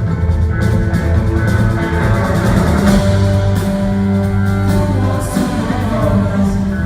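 Live rock band music: a steady bass line under sustained instrument notes, with some sliding notes near the end.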